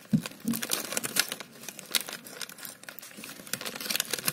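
Dense, rapid crinkling and crackling of a plastic snack packet being handled close to the microphone.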